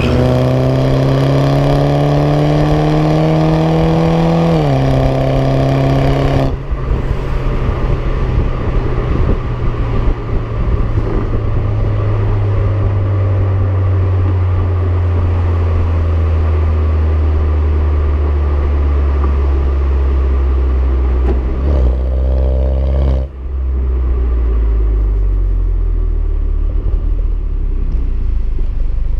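Exhaust of a BMW 116i (F20) with a Supersprint aftermarket system, the car accelerating with the engine note rising, then a gear change about four and a half seconds in. After that the driver lifts off and the engine note falls slowly as the car slows, with a short rise in revs near the end before it drops away again.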